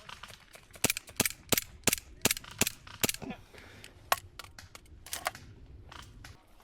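Airsoft gun firing single shots: a steady run of about seven sharp cracks, roughly three a second, then a few more spaced out.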